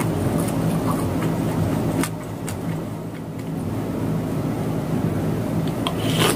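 Steady low background hum, with small soft clicks of a wooden spoon in a bowl of soup and eating, and a short slurp of noodles about six seconds in.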